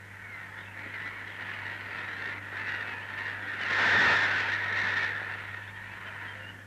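Black-headed gull colony calling, a dense chorus of harsh calls that swells to its loudest about four seconds in and then eases off.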